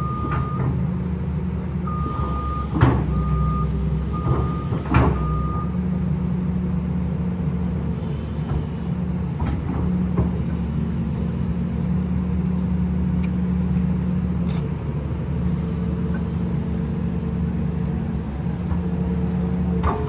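Steady diesel engine drone from a Kobelco excavator pulling a mud-stuck Toyota pickup free. A travel alarm gives about six short beeps over the first six seconds, with two sharp knocks among them.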